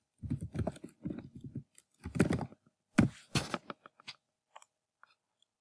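Computer keyboard typing in irregular bursts of keystrokes for about four seconds, followed by a few faint clicks.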